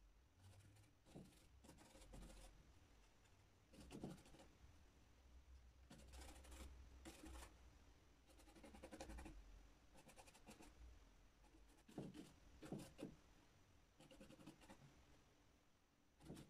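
Faint, scratchy brush strokes in irregular bursts: a paintbrush working oil paint on a painting board and mixing it on a glass palette.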